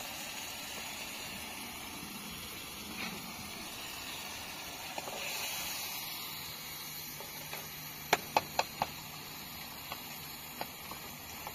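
Steady hiss of background noise, with four quick sharp knocks about eight seconds in and a few fainter taps after.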